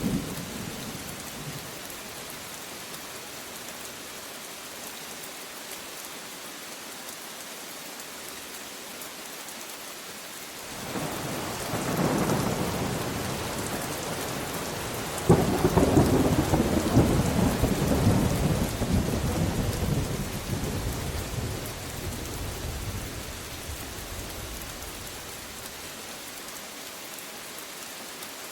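Steady rain falling, with a roll of thunder that builds about ten seconds in, breaks into a louder clap a few seconds later, then rumbles on and fades away.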